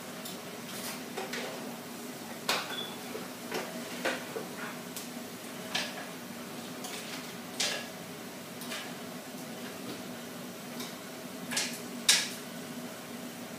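Scattered light clicks and taps, a second or two apart, over a faint steady hum: small objects being set down and moved about on a floor mat over tile.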